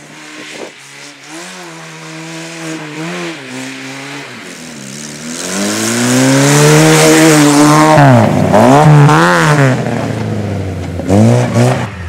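Lada rally car's four-cylinder engine revving hard as it slides through a snowy bend, growing louder as it comes close. Near its loudest the revs dip and climb sharply several times, and a second engine revs up just before the end.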